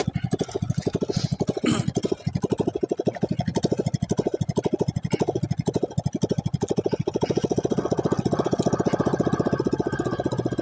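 Small boat's engine idling with a rapid, even thudding, about ten beats a second, while the anchor is hauled in by hand over the bow, with a few brief knocks and scrapes.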